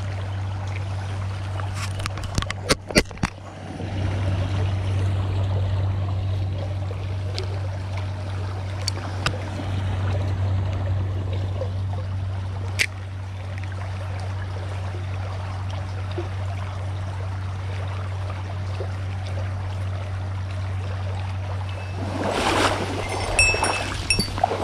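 Flowing river water over a steady low hum, with a few sharp clicks about two to three seconds in and a louder rush of noise near the end.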